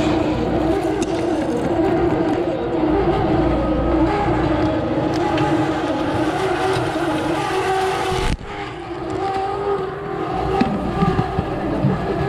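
Steady engine-like hum over busy street noise, breaking off sharply about eight seconds in and then carrying on.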